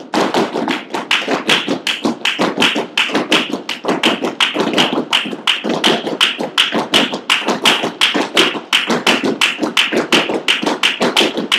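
Flamenco footwork (zapateado): the heels and soles of several dancers' flamenco shoes striking the floor together in a steady, even rhythm of sharp strikes, about five a second.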